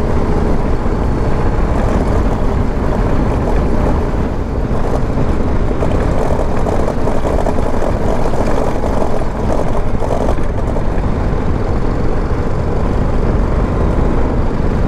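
Heavily loaded motorcycle riding over a loose sandy track: the engine runs steadily under load amid a continuous rush of riding noise, with no pauses.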